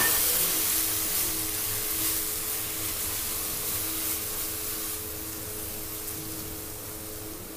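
Tomato purée sizzling in a pan of browned onions and hot mustard oil while it is stirred. The hiss is loud at first and slowly dies down.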